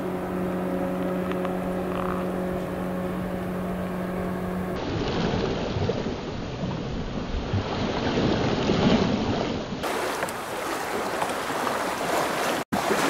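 A steady low hum for the first few seconds, then shallow lake water lapping and rippling.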